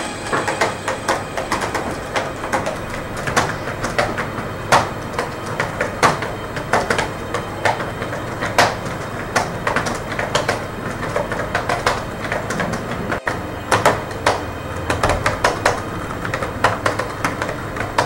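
Laptop keyboard keys clicking in irregular runs of typing, several keystrokes a second, over a steady background noise.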